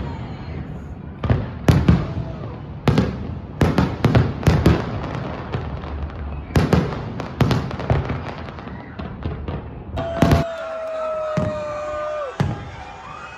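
Fireworks bursting in a quick, irregular run of loud booms for about ten seconds. After the booms stop, a single held tone sounds for about two seconds and drops in pitch at its end.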